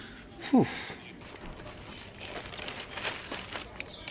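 A man's breathy "whew", falling in pitch, then light rustling and crinkling, as of plastic or paper being handled.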